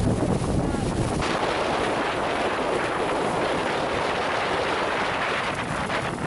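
Wind buffeting the microphone aboard a boat under way, over a steady hiss of engine and water noise. About a second in, the deep rumble drops away, leaving a steadier hiss.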